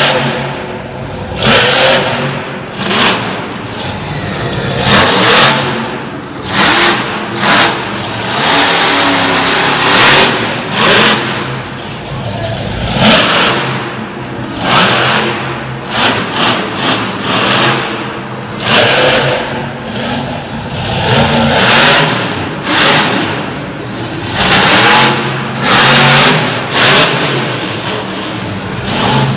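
Bigfoot monster truck's engine revving hard in repeated surges of throttle, roughly one every second or two, as the truck spins donuts.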